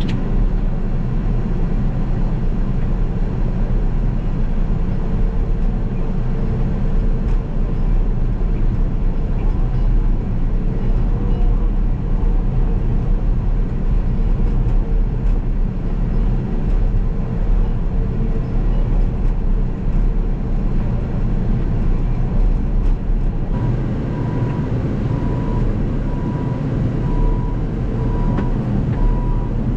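Caterpillar D6K2 XL crawler dozer working: diesel engine running under load with steady track and machine noise. About three-quarters of the way through, a backup alarm begins beeping in a steady pulse as it reverses.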